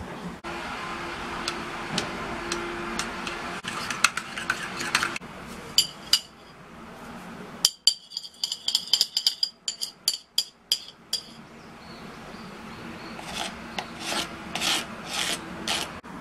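Metal spoon stirring and scraping through thick chocolate filling in a ceramic bowl. About halfway through comes a quick run of ringing clinks of spoon against bowl, and there are more scrapes near the end as the filling is worked out of the bowl.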